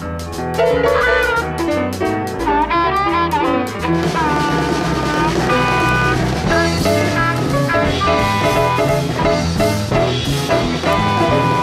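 Music with a drum beat and a melody line over bass.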